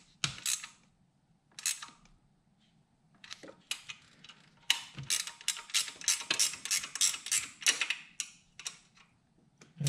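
Ratcheting wrench clicking in quick runs as bolts are tightened down, with a short pause about a second in before a longer, denser run of clicks.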